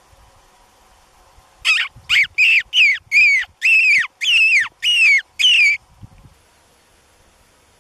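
A hand-held mouth call blown for fox, giving a series of nine sharp squealing calls in quick succession, each dropping in pitch at its end. It is used to lure a fox into view.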